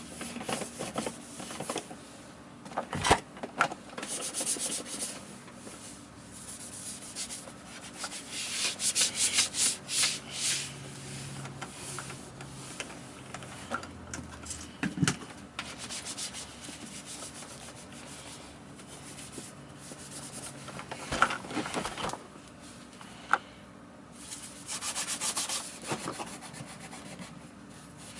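Scrubbing and rubbing on a Miele S500-series vacuum's dirty housing, in bursts of quick back-and-forth strokes, with a few sharp knocks.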